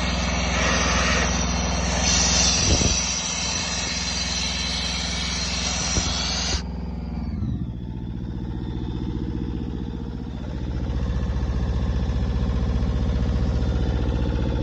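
Tow-behind air compressor's engine running steadily while compressed air blows off with a loud hiss, which cuts off suddenly about six and a half seconds in. The engine keeps running and grows a little louder about ten seconds in.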